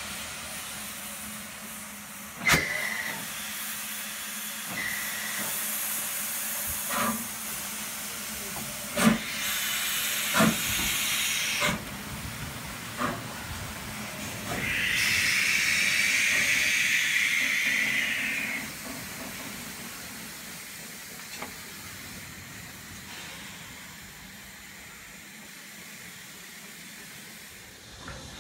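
BR Standard 9F 2-10-0 steam locomotive standing and hissing steam, with a few sharp metallic knocks. About halfway through, a louder rush of steam lasts some three and a half seconds.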